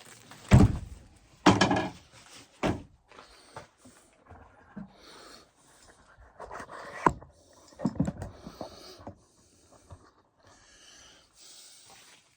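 Irregular knocks, thumps and rustling of gear being handled, with the loudest knocks in the first three seconds.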